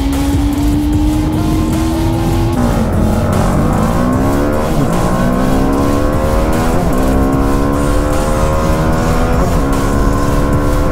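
Single-cylinder sport motorcycle engine accelerating hard, the revs climbing and then dropping sharply at each upshift, about four times. The bike heard is a KTM 250 Duke at first and a TVS Apache RR 310 by the middle.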